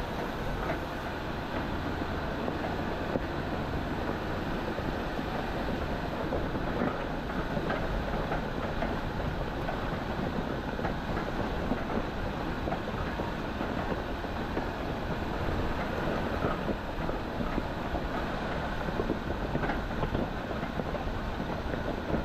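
Four-wheel-drive vehicle crawling over a rough, rocky wash trail: a steady rumble of tyres on rock and gravel with constant knocking and rattling.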